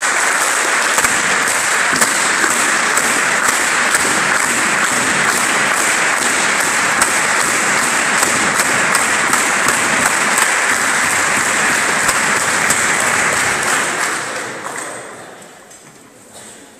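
Audience applauding, a dense mass of clapping that dies away about fourteen seconds in.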